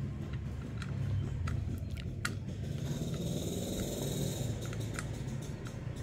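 Scattered small metal clicks and taps as a wrench works the blade bolt of a cordless mini circular saw, tightening it to lock the blade on, over a low steady hum.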